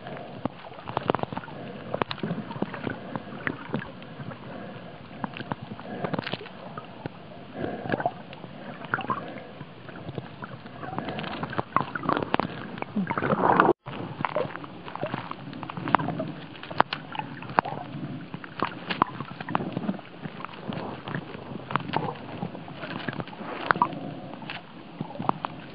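Water moving around a snorkeler's camera while it is underwater and near the surface: muffled sloshing and gurgling with many small irregular pops and clicks. The sound cuts out for an instant about halfway through.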